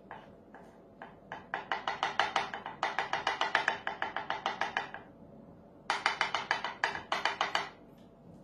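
Metal spoon tapping rapidly on a plastic tray while spreading melted chocolate into teardrop shapes, about seven or eight light taps a second. There are two runs, the second starting about six seconds in after a short pause.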